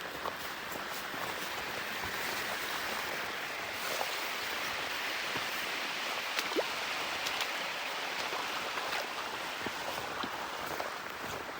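River water flowing: a steady rushing hiss with a few light ticks scattered through it.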